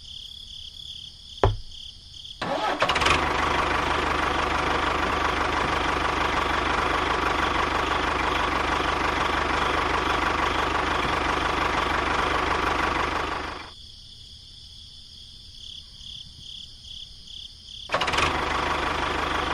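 A miniature tractor's small motor starts up with a click and runs steadily for about eleven seconds. It stops, then starts again near the end.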